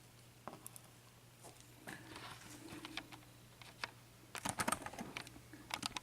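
Small lock pins and tools being handled on a work surface: faint, light clicks and taps, coming in a quick cluster about four and a half seconds in, over a faint steady low hum.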